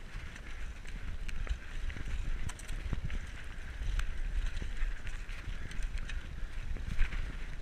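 Diamondback Recoil 29er mountain bike rolling fast down a dirt trail: steady tyre and trail noise with low wind rumble on the camera microphone, broken by scattered rattles and knocks from the bike over bumps, the sharpest about seven seconds in.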